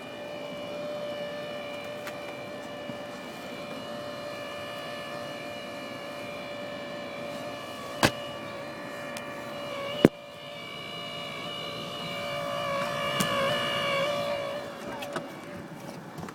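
Lexus LX570 cabin blower fan making a steady whine with several overtones, a noise it makes in below-freezing cold. Two sharp clicks come about halfway through, and near the end the whine gets louder and wavers before dying away.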